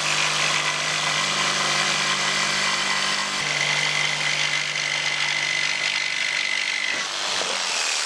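Skil corded jigsaw cutting a curve through a plywood sheet, its motor running steadily as the blade saws through the wood. The motor note shifts slightly about three and a half seconds in and dips briefly near the end.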